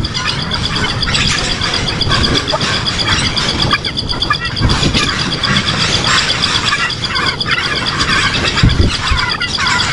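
Birds chirping in short irregular bursts over a steady, fast-pulsing high trill, with low rumbling noise underneath.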